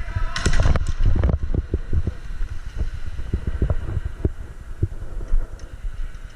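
Handling noise on a player-worn camera: a constant low rumble with irregular knocks and thumps, and a brief clatter about half a second in.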